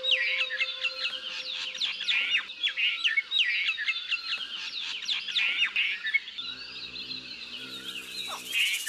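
Several small birds chirping and singing together in a busy chorus of quick, high notes. The chorus thins out after about six seconds, when a faint low hum comes in.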